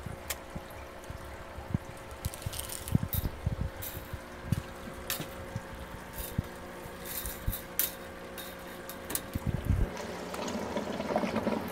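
Water trickling and splashing in an aquarium filter system, over a steady pump hum, with scattered light clicks and knocks.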